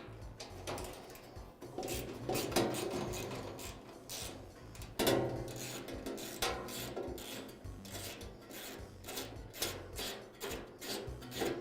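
Bolts being worked loose from a grill frame with a hand tool: irregular metal clicking and rubbing scrapes, with louder scrapes about two and a half and five seconds in.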